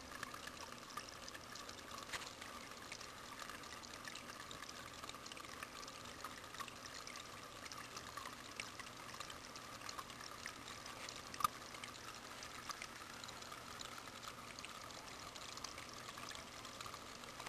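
Faint steady trickle of running water, with scattered small ticks and one sharper click about eleven seconds in.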